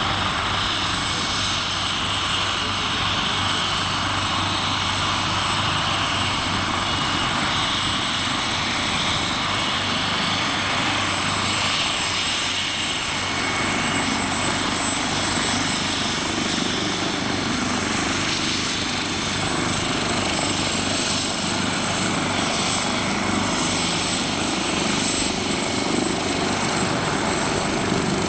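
Leonardo UH-139C (AW139) twin-turbine helicopter running steadily, rotor and engine noise with a thin high turbine whine over it.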